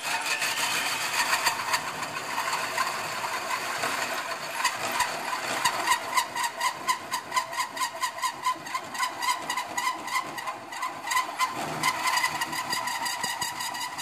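Cordless drill driving a hole saw through sheet metal: a steady whine with a grinding rasp, pulsing about two to three times a second in the middle stretch as the saw teeth bite unevenly.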